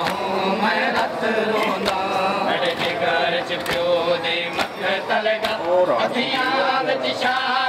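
Men's voices chanting a Shia mourning lament (noha) together, with repeated sharp slaps of hands beating on chests (matam) cutting through the chant.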